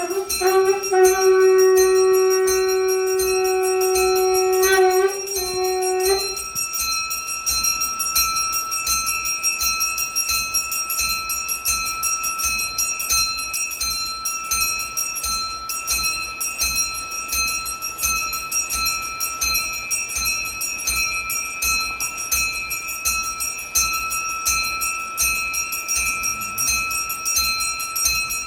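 A brass puja bell rung rapidly and without a break, its ringing tones sustained over the fast even strokes. For the first six seconds a long steady note with overtones is held over the bell, then cuts off.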